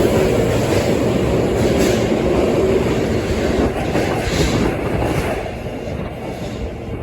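Osaka Metro Yotsubashi Line subway train running out of the station, a steady rumble of motors and wheels on rail with some clatter, fading as it pulls away after about five seconds.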